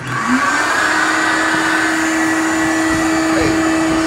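Electric air blower of a floating-ball air-stream exhibit switching on at a button press and running with a steady rushing hiss, a steady hum settling in about a second in.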